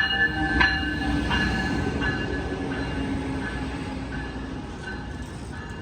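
Passenger train led by a Siemens Charger SC44 locomotive slowing as it pulls into the station. Steady high squeal from the wheels and brakes, with wheel clicks over rail joints that spread further apart as it slows. The whole sound fades gradually toward a stop.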